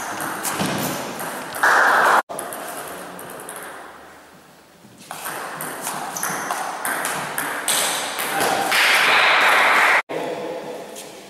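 Table tennis rallies: a celluloid ball clicking off rubber-faced bats and bouncing on the table in quick exchanges. Two louder stretches of rushing noise, each ending in an abrupt cut.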